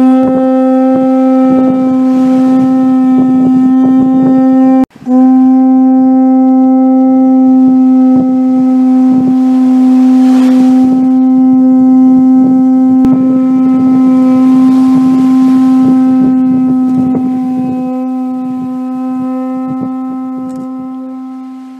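A long blown horn note on one steady pitch, breaking off briefly about five seconds in, then held for over fifteen seconds before fading away near the end.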